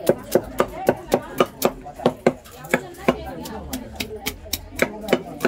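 Heavy knife striking a fish on a wooden log chopping block in quick repeated strokes, about three or four a second, with a lighter, sparser stretch in the middle.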